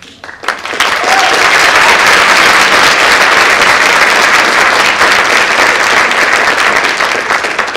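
Audience applauding: many hands clapping at once, swelling to full strength about a second in and dying away near the end.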